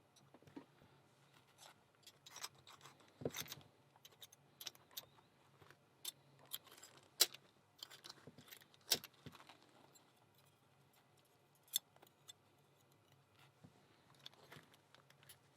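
Small metallic clicks and taps at irregular intervals as an American 1100 padlock and its small parts and tools are handled in gloved fingers. There are a few sharper clicks in the middle and fewer near the end.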